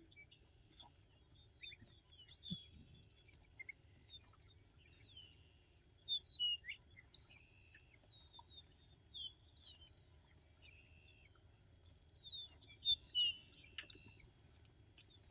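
Wild songbirds singing and chirping: a run of short, quick high whistled notes, broken by fast buzzy trills about three seconds in and again near twelve seconds.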